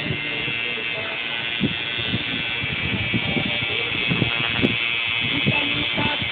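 Coil tattoo machine buzzing steadily as its needle works ink into the skin, with a single sharp click about two-thirds of the way through.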